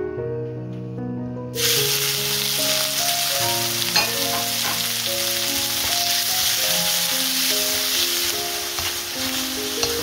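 Beef slices sizzling in hot sesame oil in a wok over high heat, the sizzle starting abruptly about a second and a half in as the meat goes into the pan, then running on steadily while it is stirred with a wooden spatula. Light background music plays underneath.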